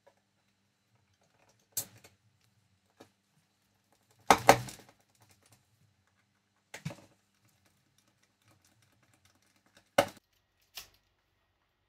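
Scattered clicks and knocks of a screwdriver and gloved hands seating a timer switch and a fan speed switch into a metal wall box, the loudest a short cluster of knocks about four seconds in.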